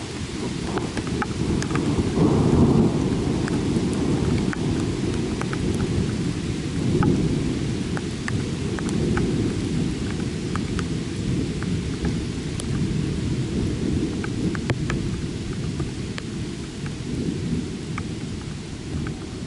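Thunder rumbling after a lightning flash. It swells to its loudest about two seconds in and then slowly dies away, with scattered raindrops ticking throughout.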